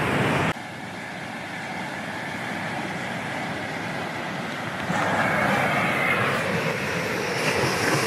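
Ocean surf, big shore-break waves breaking on the beach: a steady rushing wash that swells louder about five seconds in.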